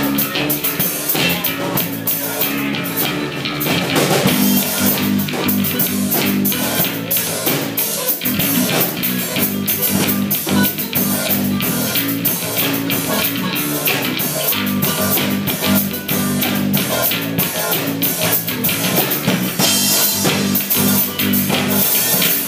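Live band playing a rock song, with a strummed acoustic guitar over a steady drum beat.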